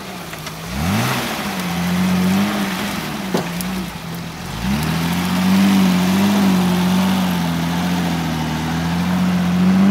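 Off-road 4x4's engine revving hard twice and held at high revs under load as it drives through the course. The revs waver a little and dip briefly in the middle. There is one sharp knock about a third of the way in.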